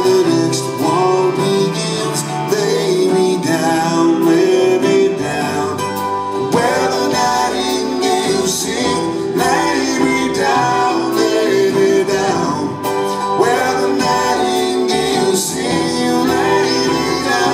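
Live band playing a country waltz, with guitar prominent.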